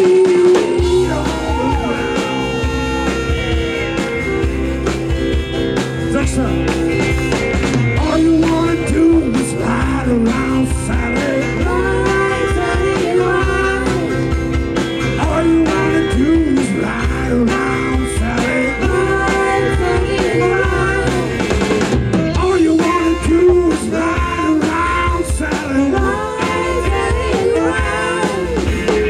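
Live blues-rock band playing loud: electric guitar lines bending over steady bass and drums, coming in at full level right at the start.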